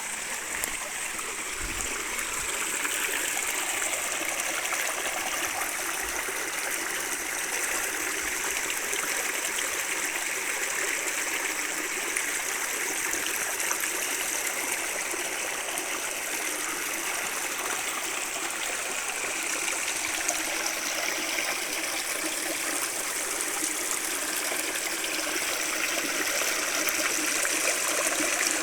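Steady rush of a small hill waterfall and its stream.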